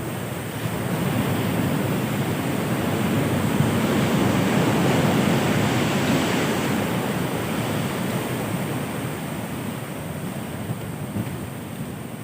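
Heavy ocean surf: a big wave breaking and rushing in, the noise swelling to a peak about halfway through and then slowly easing off.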